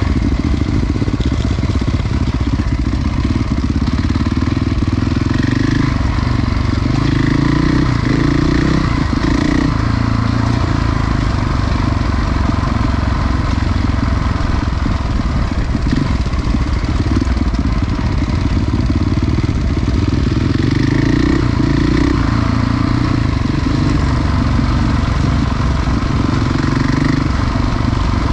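Enduro motorcycle engine running at low to moderate revs, its pitch rising and falling a little now and then.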